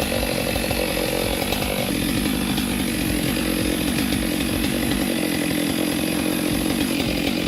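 Chainsaw cutting into a large tree trunk, running steadily at high revs. Its pitch drops slightly about two seconds in and then holds.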